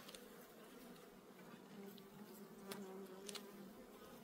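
Buckfast honeybees buzzing faintly over an open hive, a low steady hum. A couple of faint clicks from the hive tool on the wooden frames come in the second half.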